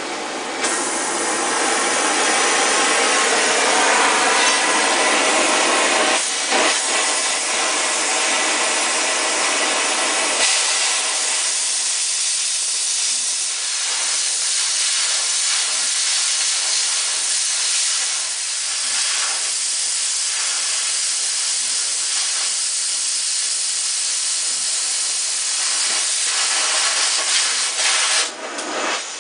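Harris 43-2 oxy-acetylene torch with a No. 49 cutting head, its flame hissing and roaring steadily as it cuts metal. About ten seconds in, the lower part of the roar drops away and leaves a thinner, higher hiss, which dips near the end.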